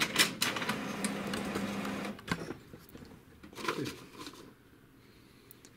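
HP DeskJet 2130 all-in-one printer starting a copy job: its mechanism whirs with a steady motor hum for about two seconds, gives a sharp click, then whirs again briefly with falling pitch before going quiet near the end.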